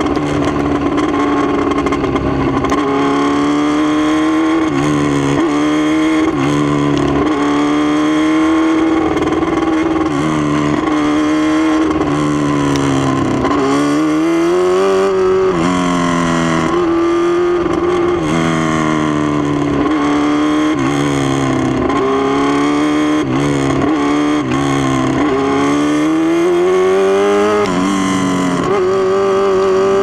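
A 1000cc midget race car's engine heard from on board at racing speed, its pitch climbing and falling every couple of seconds as the driver goes on and off the throttle around the oval. Wind noise runs under it.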